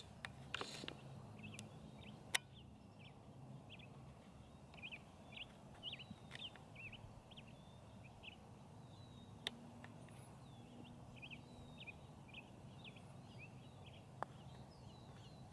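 Small birds chirping in short, high calls throughout, over a faint steady low hum, with a few sharp clicks scattered through, the loudest about two seconds in.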